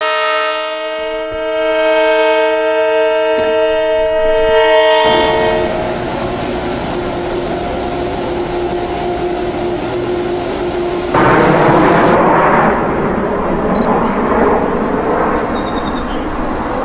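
Multi-note train horn sounding one steady chord for about five seconds, then the noisy rumble of a moving train, which grows louder for a second or so about eleven seconds in.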